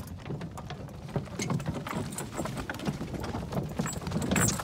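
Heavy draft horse's hooves plodding at a walk on a soft grassy dirt track, an irregular run of dull knocks, with the wooden cart and harness rattling along behind.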